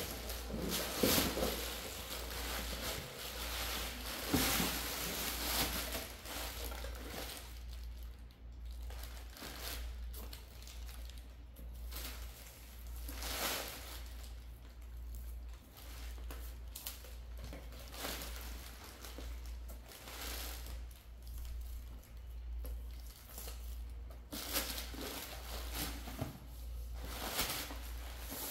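Plastic air-cushion packaging and plastic-wrapped boxes crinkling and rustling as they are handled, in scattered bursts, over a steady low hum.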